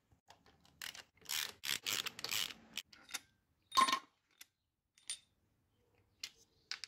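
Hand wrench working the carburettor's half-inch hold-down bolts loose: several rasping strokes in the first three seconds, then a few sharp metallic clicks about a second apart.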